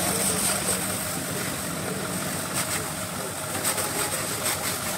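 Pressure washer spraying a jet of water against a car's side panel and wheel: a steady hiss of spray, surging briefly a few times, over the washer's running motor.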